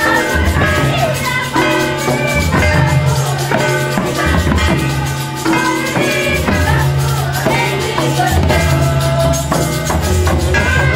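Tribal folk dance music: a steady, repeating rhythm on hand-played barrel drums under group singing.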